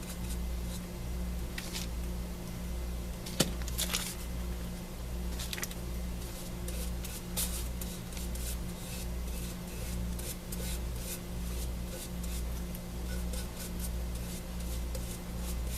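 Paper being handled during craft work: scattered light rustles, rubs and small clicks, the sharpest click about three and a half seconds in. Under it runs a steady low hum that swells about once a second.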